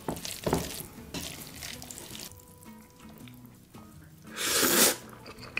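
Noodles and seasoned greens being tossed in a bowl with metal tongs, wet squelching strokes in the first second, then a loud slurp of the noodles about four and a half seconds in.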